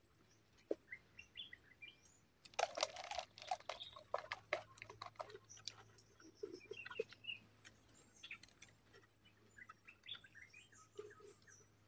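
Faint, scattered bird chirps with a few soft clicks, and a short crackle of rustling about two and a half seconds in.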